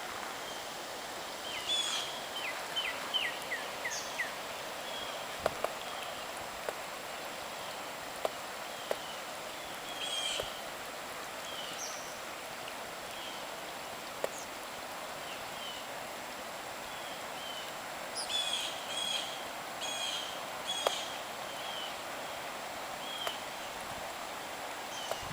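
Steady rush of flowing floodwater with birds chirping over it: a quick run of short falling chirps a couple of seconds in, scattered calls after, and a burst of chirping near the end.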